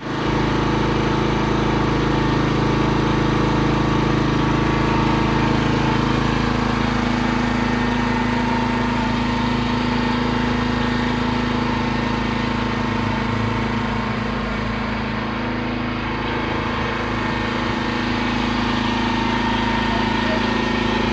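Engine-driven pressure washer running steadily at a constant speed.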